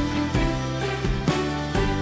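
Background music: a music track with sustained bass notes and regular chord changes.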